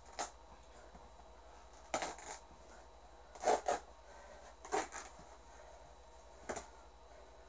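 Light knocks and clicks from objects being handled and moved on a rug-covered floor, about seven short sounds spaced irregularly, the loudest pair about halfway through.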